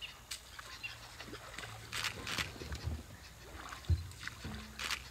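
African elephant wading into shallow river water, its feet splashing and sloshing in a few short bursts. A low thud comes about four seconds in.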